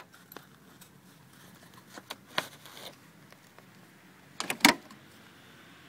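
Plastic trim and rubber of a Smart Fortwo 450 Cabrio's soft-top rear section being handled while it is unhooked: a few light clicks about two seconds in, then a short burst of loud clacks about four and a half seconds in.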